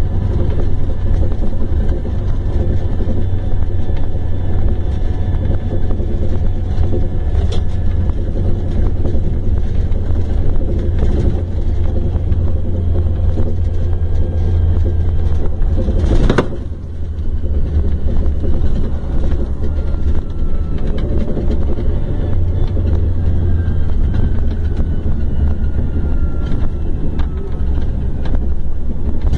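Scania K410 coach's rear-mounted diesel engine running at a steady speed, a constant deep hum with no revving. About halfway through there is one sharp click and the sound dips for a moment.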